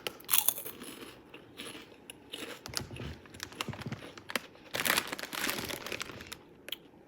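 Choco Churros snack being bitten and chewed close to the microphone: irregular crunches in clusters, crunchy but soft.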